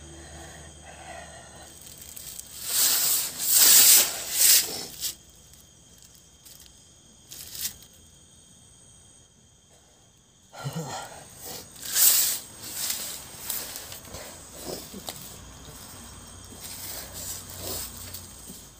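A person hissing and breathing hard in harsh bursts. There is a loud cluster a few seconds in, a near-quiet pause in the middle, and more bursts later.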